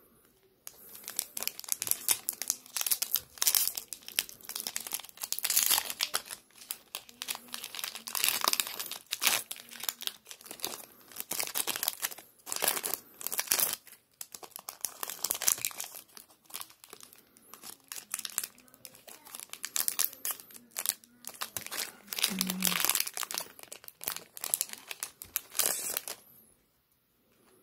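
Foil wrapper of a Pokémon trading card booster pack crinkling as it is handled and torn open, in uneven bursts of crackling that stop about a second before the end.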